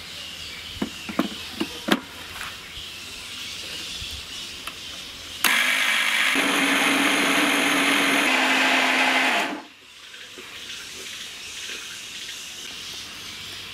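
Electric mixer grinder grinding soaked raw rice with jaggery syrup and no added water in a stainless steel jar: a few clinks as the jar is seated on the base, then the motor runs loudly for about four seconds, its note dropping slightly partway, and cuts off suddenly.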